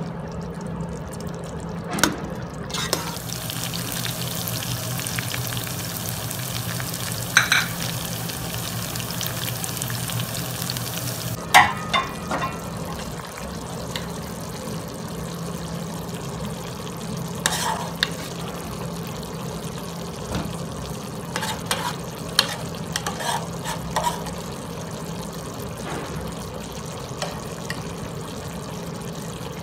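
Chicken pieces sizzling and simmering in their juices in a metal pot, a steady crackle, with a metal spoon clinking and scraping against the pot now and then.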